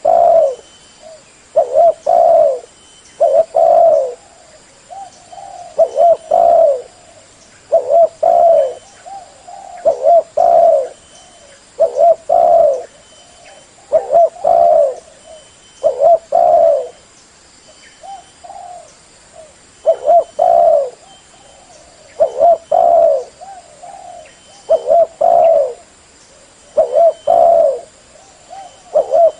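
Spotted dove cooing loudly over and over, a phrase about every two seconds, each phrase a few short low coos.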